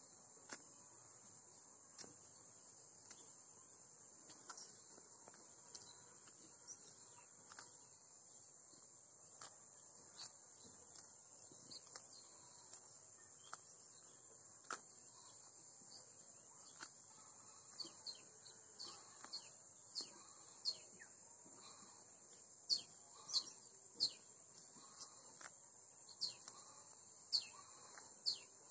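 Steady high-pitched drone of crickets and other insects, with scattered short chirps and sharp snaps of a cow tearing grass as it grazes. The snaps come more often and louder in the second half.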